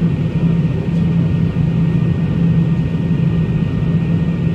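Steady cabin noise of a McDonnell Douglas MD-80 airliner in flight: its rear-mounted Pratt & Whitney JT8D engines and the rushing air, dominated by a constant low hum.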